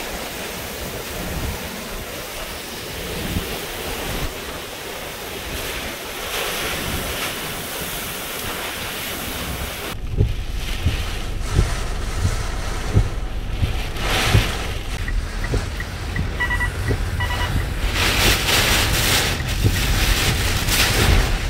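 Hurricane-force wind and driving rain near the eyewall of Category 4 Hurricane Laura, with wind buffeting the microphone. About ten seconds in it cuts to the inside of a car: the storm is heard through the car body as a deep rumble, with the windshield wipers knocking across the glass at a steady pace.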